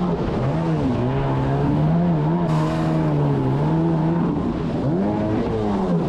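Jet ski engine running and being revved up and down, its pitch rising and falling several times, with a short hiss about two and a half seconds in.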